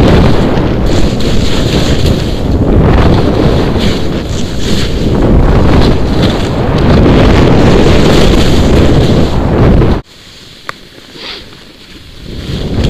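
Loud wind buffeting a helmet-mounted action camera's microphone on a fast snow descent. About ten seconds in it cuts off suddenly to a much quieter hush with one small click, then builds again near the end as speed picks up.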